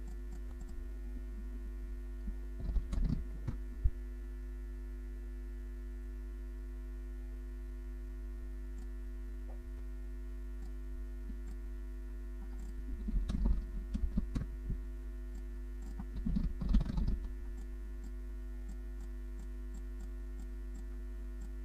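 Steady electrical hum with three short runs of computer mouse clicks and keyboard tapping: one a few seconds in and two more past the middle.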